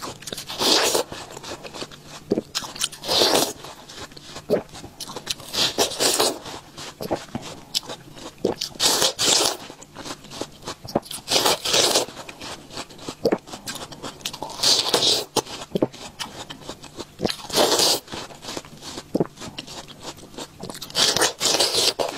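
Close-up crunching bites into a slice of watermelon taken right down near the rind, with chewing between them. There is a loud bite every two to three seconds, and the rind is tough and chewy.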